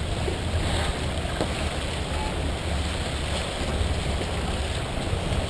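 Wind buffeting the microphone in a steady low rumble, over the rush of water along the hull of a Columbia 30 sailboat sailing under way through chop.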